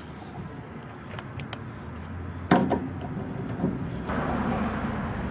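Knocks from handling a partly dismantled air-conditioner unit: a few light clicks, then one sharp knock with a brief ring about two and a half seconds in and a softer knock a second later. A low hum runs under it, and a steady rushing noise comes in near the end.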